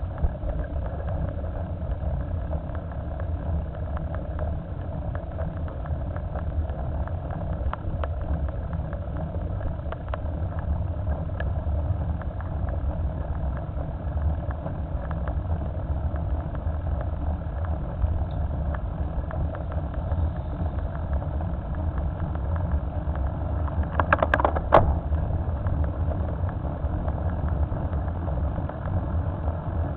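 Steady low wind rumble on a bicycle-mounted camera's microphone, mixed with tyre noise on asphalt while riding. A short burst of rattling clicks comes about 24 seconds in.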